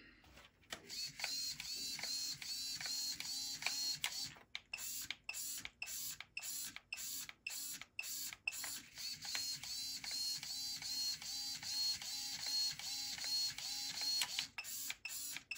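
Small RC servos whirring back and forth in quick short bursts, about three a second, their motor whine rising and falling with each sweep. They are driven by a conformally coated receiver sitting submerged in water, showing it still works underwater.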